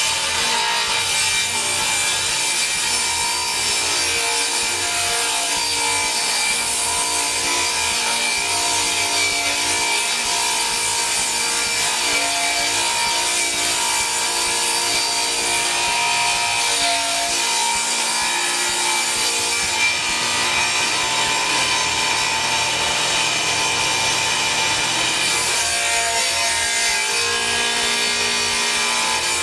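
Table saw ripping a sheet of 1/2-inch pressure-treated plywood: a loud, steady cutting noise with the saw's held whine over it.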